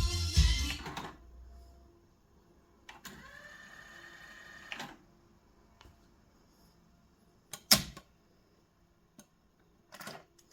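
Music playback ends about a second in. Then the cassette deck's transport works: a click, about two seconds of motor whirring, another click, then a loud sharp mechanical click and a few lighter clicks.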